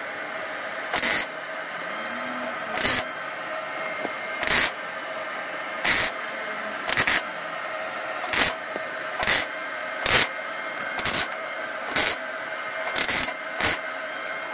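MIG welder laying short tack welds on thin sheet steel, about a dozen brief arc bursts roughly a second apart over a steady hum.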